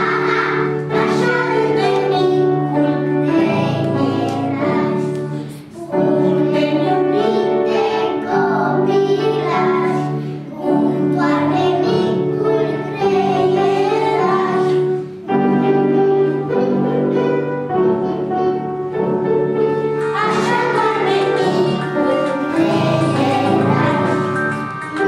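A group of young children singing a song together in unison over a steady instrumental accompaniment, with short breaks between phrases.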